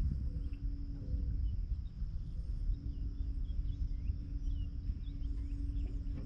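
Outdoor ambience: a low rumble of wind on the microphone under a steady high insect drone, with faint scattered bird chirps.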